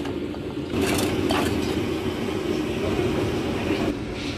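Steady low rumble of a street food stall's surroundings, with a few light clinks of crockery or utensils about a second in.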